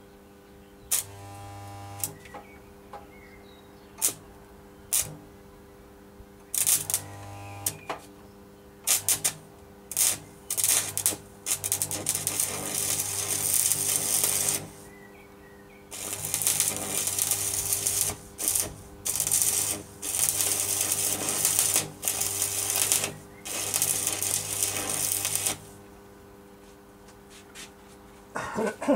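Electric arc welding: the arc crackles and sputters in several short bursts, tack welds, then in longer runs of a few seconds each as the seam is laid, with a low electrical hum while the arc is struck. A steady hum runs underneath.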